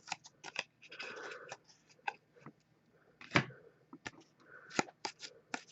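Trading cards and pack wrappers being handled: a scatter of short crinkles, clicks and rustles, with one louder snap about three and a half seconds in.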